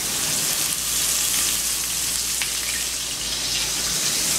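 Whole lane snappers frying in hot oil: a steady sizzle.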